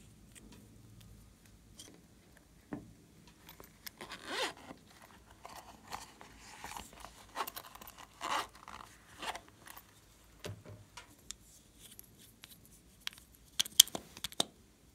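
Small plastic makeup items being handled: scattered rasping and scraping. A lip gloss tube is opened near the end with a few sharp clicks, the loudest sounds here.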